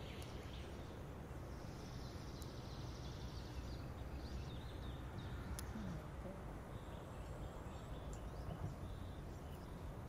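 Outdoor ambience: a steady low rumble of wind with faint bird chirps and a few small sharp clicks.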